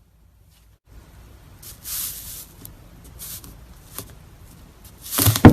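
Slime being squished and handled by hand: short soft hissing squishes about two and three seconds in, then a much louder handling noise just before the end.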